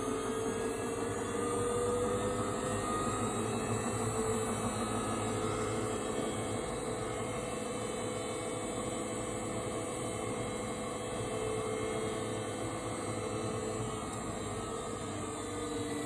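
Washing machine running its spin cycle: a steady motor whine whose pitch drifts slowly up and down over the noise of the spinning tub.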